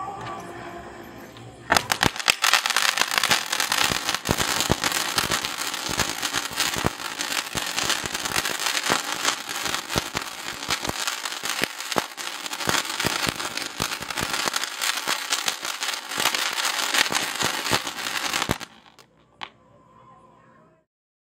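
Crackling fancy fountain firework in a soft-drink-can casing: after a short fuse burn it bursts into a loud, dense spray of rapid crackles about two seconds in, keeps crackling steadily for about seventeen seconds, then cuts off suddenly.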